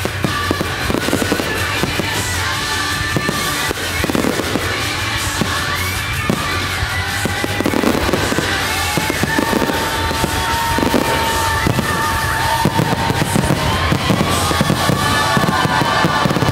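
Fireworks bursting in quick succession over loud music from the show's sound system, a dense barrage typical of a fireworks finale.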